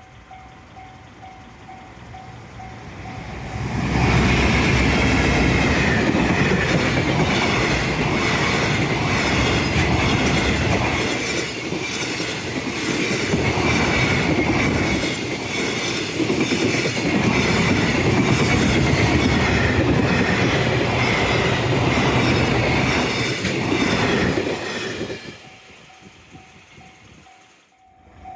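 An electric-hauled freight train passing close by. It approaches quietly, then about four seconds in the rumble of the wagons and the regular clatter of wheels over rail joints come in loud, with a high ringing from the wheels on the rails. The sound drops away a few seconds before the end.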